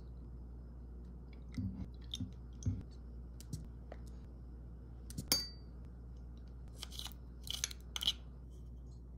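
Small kitchen handling sounds as a metal spoon and bottles work over a glass measuring cup: a few soft knocks, then one sharp clink with a brief ring about halfway through. Near the end comes a cluster of small clicks and scrapes as minced garlic is scraped off its container into the cup.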